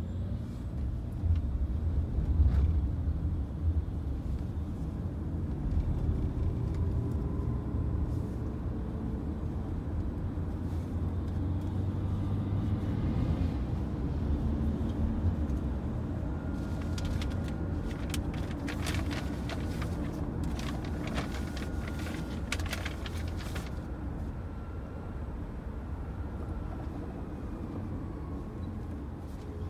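Inside a moving taxi: the steady low rumble of the car's engine and tyres on the road. A run of sharp clicks comes in around the middle and stops a few seconds later.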